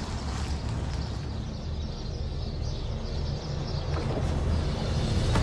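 A car driving slowly up to the house: a low, steady engine and tyre rumble.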